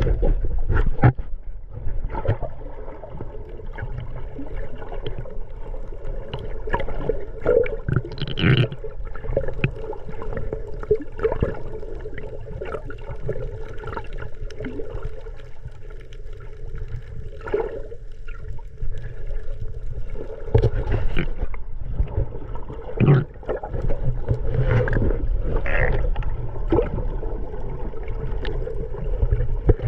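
Water gurgling and bubbling with a steady low rumble and scattered clicks and pops.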